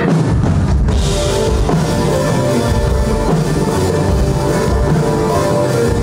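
Loud rock band music, a full drum kit and bass driving the beat.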